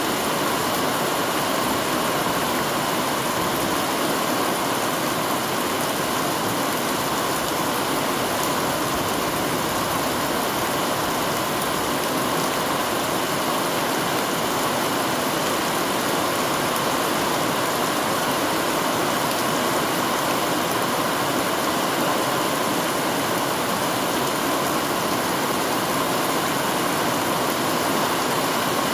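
Heavy rain falling steadily, splashing into a brimming plastic rain barrel and onto the garden around it: an unbroken hiss of rain and splashing water.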